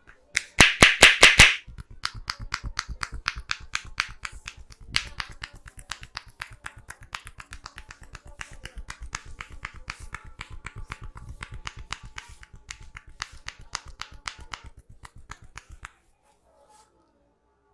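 Percussive head-massage strokes: a barber's hands strike the head about six times in quick, loud succession, then tap on in a long, fast, lighter run that stops near the end.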